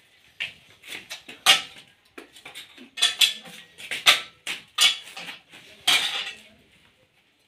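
Brass sword-hilt fittings clinking and clattering against each other as they are handled and fitted together, in irregular sharp metallic knocks, a few of them louder.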